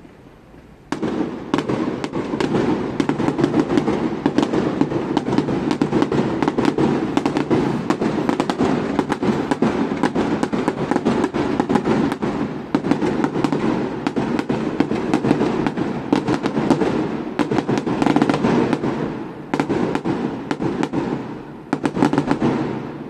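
Fireworks going off in a dense, rapid barrage of bangs and crackles, starting about a second in and running almost without pause. It dips briefly twice near the end, then stops.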